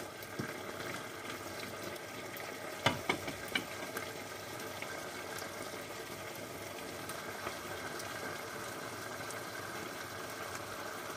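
Chicken strips and vegetables simmering in sauce in a pan, a steady bubbling sizzle, with a few light knocks about three seconds in.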